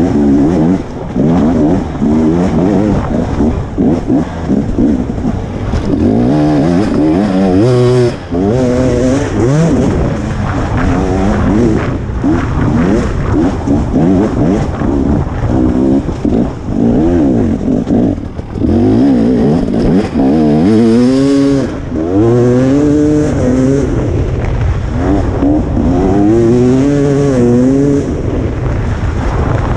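KTM 300 XC two-stroke single-cylinder dirt bike engine, loud and revving up and down again and again as the rider works the throttle on and off.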